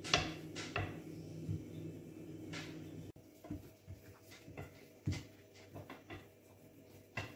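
Long, thin wooden rolling pin (oklava) rolling over a sheet of dough on a floured countertop, with a few sharp wooden knocks as the pin is set down and lifted, and hands rubbing and patting the dough.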